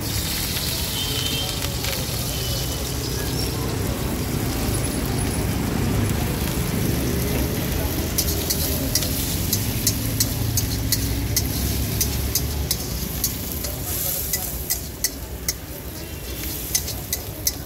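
Chopped onion and vegetables sizzling in oil in a steel wok, with a metal spatula repeatedly striking and scraping the wok from about eight seconds in.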